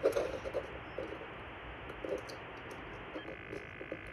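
Small irregular clicks and taps of plastic as fingers press a tiny combiner mirror into a black 3D-printed glasses frame, over a steady hiss. A faint high steady whine comes in about three seconds in.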